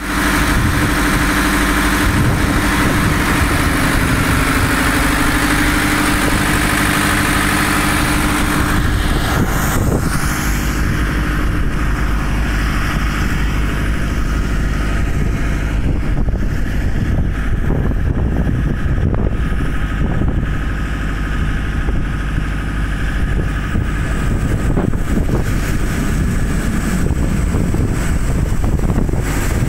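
Air-cooled four-cylinder Deutz diesel engine running steadily. It is loud and close at first, then duller after about nine seconds once the microphone is away from the open engine compartment.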